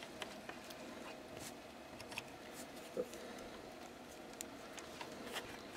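Light clicks and taps of handling as multimeter probes and fingers work among the resistors and wiring of an old valve radio chassis, the sharpest click about three seconds in, over a faint steady hum.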